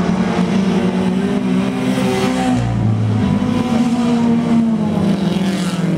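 Several dirt-track race cars' engines running under throttle as the cars lap the oval, pitch rising and falling as they pass.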